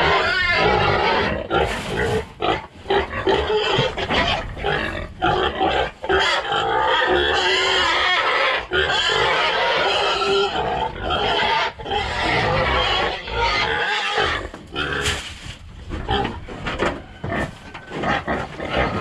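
Domestic hogs squealing loudly and without letup as they wait for their feed, easing off and breaking up in the last few seconds once they start eating.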